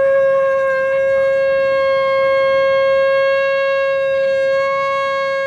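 One long, steady, high reedy note blown through a flat object held to the lips between cupped hands, like a leaf whistle.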